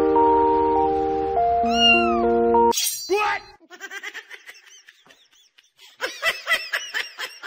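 Background music with held notes, and a cat's meow over it about two seconds in. The music then cuts out, a house cat gives a loud falling cry followed by softer calls, and near the end it makes a quick run of short, repeated meows while having its head scratched.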